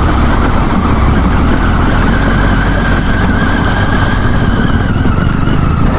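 Triumph Tiger 800's three-cylinder engine running as the motorcycle rides through a shallow rocky stream, with water splashing from the tyres in a loud, steady rush over it.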